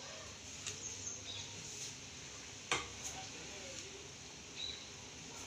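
A spoon clicking a few times against the pot as sugar is added, one click louder than the rest near the middle, over a steady low hiss.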